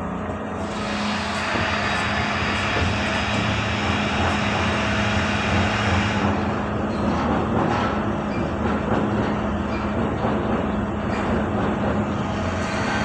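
Steady roar of a refrigerated cargo ship's machinery, with a constant low hum under it.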